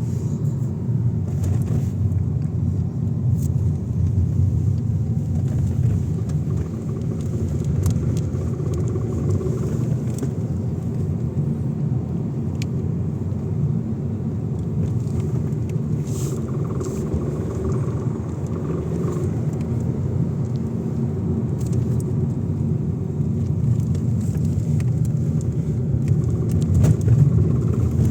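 Škoda Octavia A5 driving in a steady left-hand turn: continuous low road and engine rumble with scattered short clicks from the suspension at irregular intervals, the clicking that shows up only when turning left.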